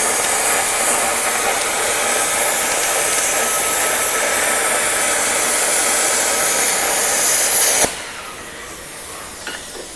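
100A plasma cutter cutting through 2 cm thick steel plate: a loud, steady hiss of the arc and air jet. It cuts off suddenly near the end, leaving a fainter hiss.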